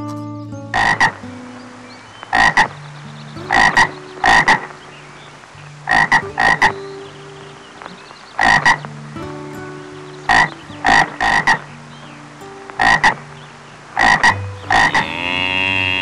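Frog croaking: short, loud croaks, mostly in pairs, repeated every second or two. Near the end a cow begins to moo.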